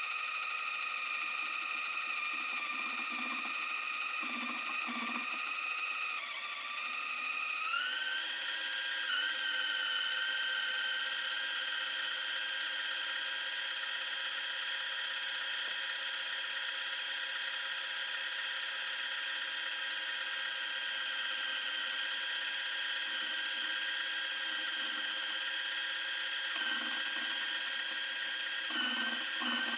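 A First Tool micro lathe's small electric motor spinning with a steady high whine. About 7 seconds in, its pitch sags, then rises to a higher steady speed. Near the end the pitch dips briefly a few times.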